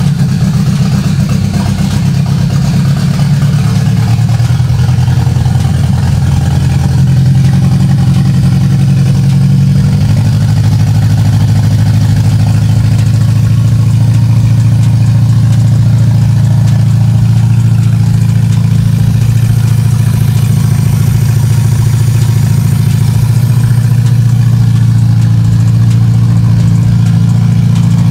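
Honda K-series inline-four, swapped into a Civic hatchback, idling steadily on a basic starter tune; the idle note shifts about ten seconds in and then holds.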